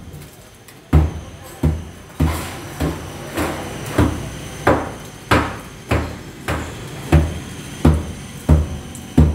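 Hand hammer striking a plastered masonry wall, breaking it away: a steady run of sharp knocks, about one and a half a second.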